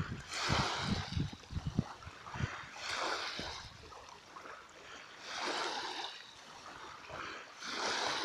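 Small sea waves washing in, a hiss of water that swells and fades about every two and a half seconds, with low thumps in the first two seconds.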